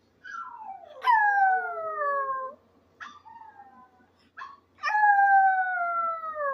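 Maltese dog howling: two long howls that slide slowly down in pitch, with short yelps in between.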